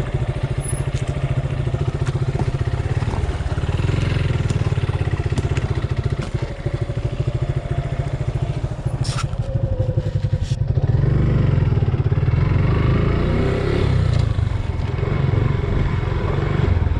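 Suzuki Gixxer 150's single-cylinder engine running steadily with a fast, even pulse, a little louder from about eleven seconds in, with a few sharp clicks around nine seconds.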